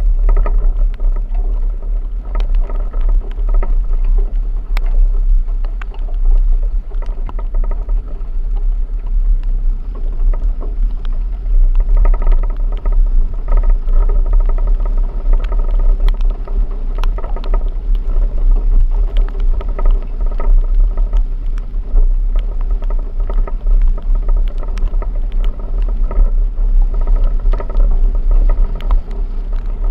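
A vehicle driving off-road, with a steady engine drone over a heavy low rumble and scattered clicks and knocks.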